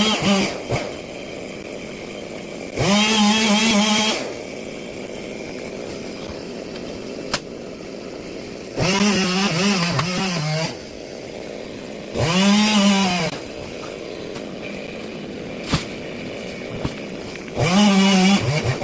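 Two-stroke chainsaw idling, revved up five times in short bursts of one to two seconds, dropping back to idle between them.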